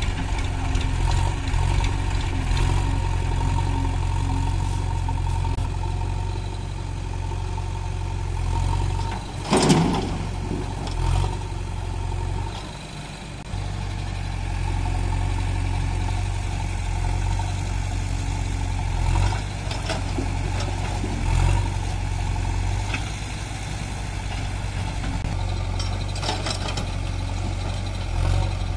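Diesel engines of an Eicher 551 farm tractor and a JCB backhoe loader running steadily, the loader working its arm, with a loud clank about ten seconds in and a few smaller knocks later. The engine sound drops briefly a little past the middle.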